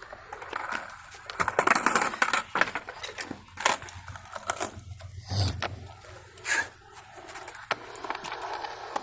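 Skateboard riding: wheels rolling and scraping with repeated clacks and knocks of the wooden board, and a heavy thump about five and a half seconds in.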